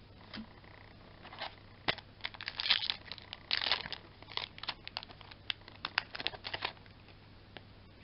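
Foil Yu-Gi-Oh booster pack wrapper being torn open and crinkled: a dense stretch of crackling and tearing from about two seconds in, then a run of quick sharp crinkles that stops near the end.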